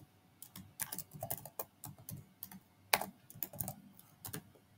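Typing on a computer keyboard: irregular keystrokes with short pauses between them, one sharper stroke about three seconds in.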